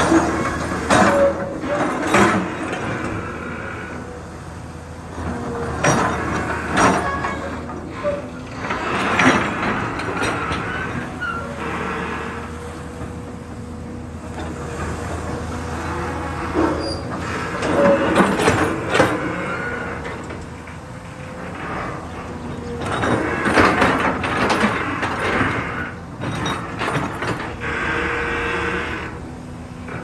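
Long-reach excavator at work: its diesel engine runs steadily under a constant hydraulic whine. The sound surges louder several times as the boom and bucket dig and lift, with squeaks and clanks from the arm.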